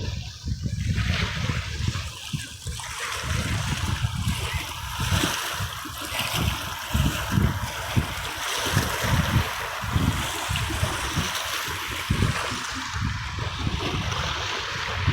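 Sea waves washing and splashing: a continuous rush of water with frequent brief, uneven low thuds.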